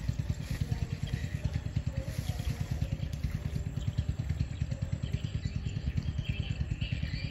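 A small engine running steadily, with a fast, even low throb.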